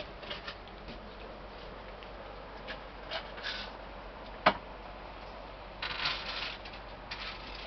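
Quiet room with scattered short rustles and light clicks, one sharp click about four and a half seconds in.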